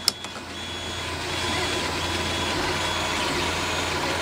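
OO gauge model steam locomotive (Hornby Terrier) running along the track with a coach, its motor and wheels making a steady hum that grows louder over the first second or so, then holds. Two sharp clicks come right at the start.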